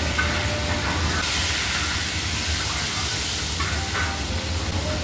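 Steady hissing from a pan on a lit commercial gas range as it is stirred with a ladle, growing louder about a second in, over a low steady hum.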